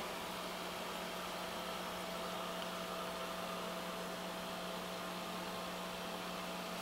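Steady electric hum of an aquarium pump running, with an even hiss over it.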